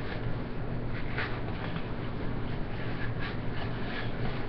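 A paper towel wiping the plastic lens of a paintball goggle dry in short rubbing strokes, over a steady low hum.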